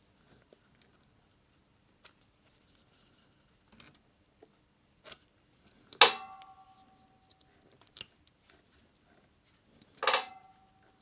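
Light handling clicks, then two sharp knocks about four seconds apart, each with a short ringing tone that dies away: a small hard object, metal-sounding, being set down on a hard surface during a laptop RAM installation.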